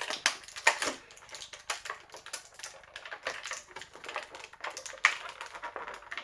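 Hard plastic parts of a Transformers Earthrise Fasttrack action figure clicking and knocking as they are handled and pulled apart: a run of irregular sharp clicks, with a few louder knocks.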